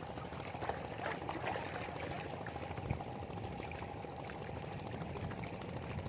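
Seawater washing against the rocks of a breakwater, a steady rushing sound with a few faint ticks.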